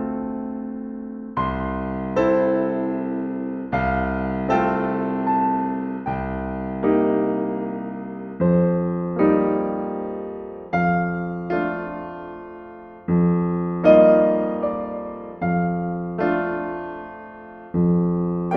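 Background music: slow, gentle piano chords, a new chord struck every second or so and left to die away.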